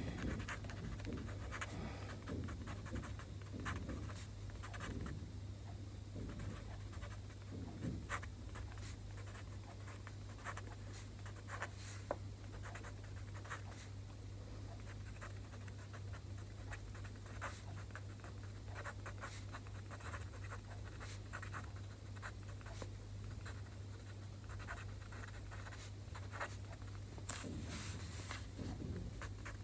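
Pen writing Chinese characters on a sheet of paper: an uneven run of short scratches and light taps of the pen tip as each stroke is made, over a low steady hum.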